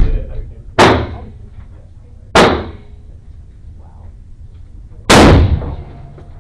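Four gunshots at irregular intervals, each a sharp report with a short echoing tail; the last one, about five seconds in, is the loudest and longest.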